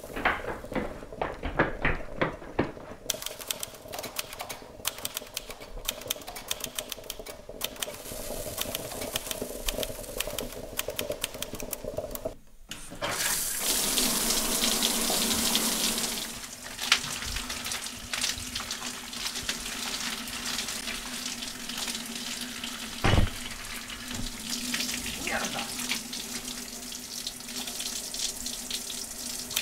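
A handheld shower head spraying water, loudest for a few seconds near the middle and then running on more quietly. Before it come irregular crackling clicks over a steady hum.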